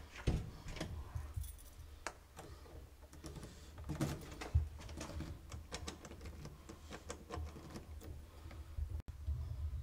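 A bunch of keys jangling, with irregular clicks and a few sharper knocks as an apartment door lock is handled.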